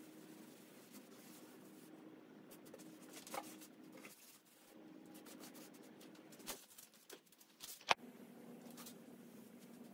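Faint scratching and rubbing of hand work on a wooden chest over a low steady hum, with a few sharp clicks, the loudest near the end.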